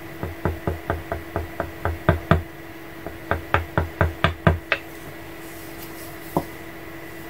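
Wooden mallet tapping a metal leather-stamping tool into damp leather: a quick run of about ten taps, a short pause, then about seven more, and one last single tap near the end.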